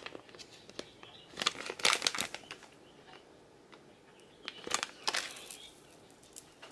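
Small plastic bead bag crinkling and rustling as it is handled and opened. It comes in two short spells, about a second and a half in and again near five seconds.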